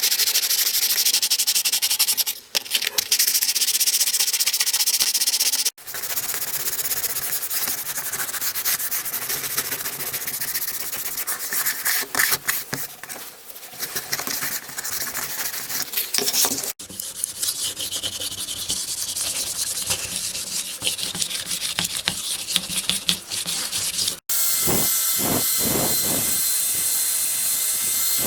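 Abrasive sanding of parts, a rough rubbing noise in several spells that cut off abruptly. Near the end a power tool starts, with a steady whine and a regular pulsing.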